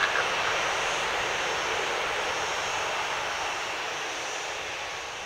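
Wizz Air Airbus A321neo's twin Pratt & Whitney geared turbofan engines at takeoff-climb power as the jet climbs away. It is a steady rushing roar with a high whine on top, slowly fading.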